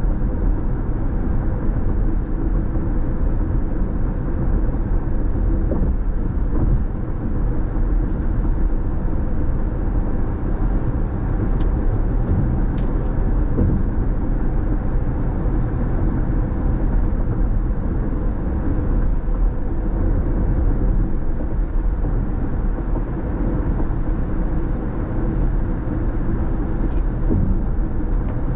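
Steady road and engine noise of a car at freeway speed, heard inside the cabin: a low, even rumble from the tyres on the concrete pavement. A few faint ticks sound over it.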